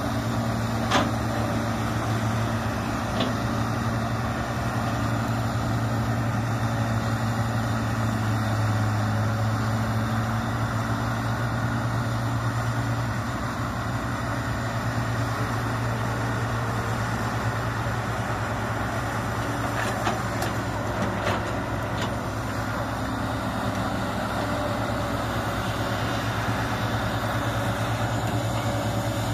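Sumitomo hydraulic excavator's diesel engine running steadily as the machine works through a muddy rice paddy, with a few short sharp clanks about a second in and again around twenty seconds in.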